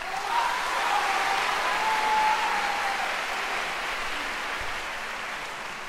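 Concert audience applauding, the clapping starting all at once and slowly dying away.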